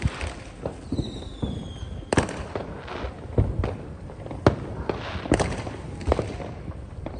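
Fireworks and firecrackers banging and popping at an irregular pace, with several louder bangs. There is a high falling whistle about a second in.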